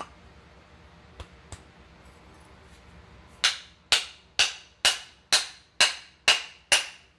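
Hammer blows driving the wooden handle into the socket of a forged wood slick: a few light knocks, then eight sharp strikes about two a second, each ringing briefly.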